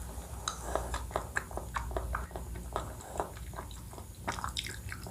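Close-miked chewing and mouth sounds of someone eating a Thai coconut-milk dessert: an irregular run of small clicks, several a second, over a low steady hum.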